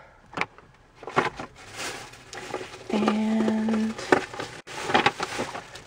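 Clear plastic rubber-stamp cases clicking and knocking as they are handled. About three seconds in, a short steady 'mmm' hum from a woman's voice lasts about a second.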